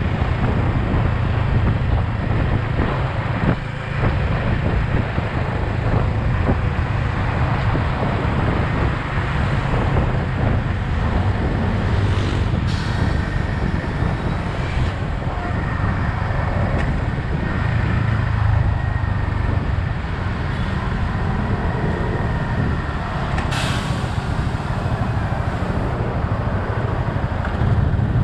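Yamaha XSR 155's single-cylinder engine running during a ride in road traffic, with steady road and wind noise. Two short hisses, about twelve seconds in and again near the end, fit the air brakes of a nearby truck or bus.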